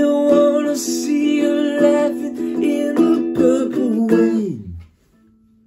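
Mele ukulele strummed in steady chords. About four and a half seconds in the sound slides down in pitch and dies away to near silence.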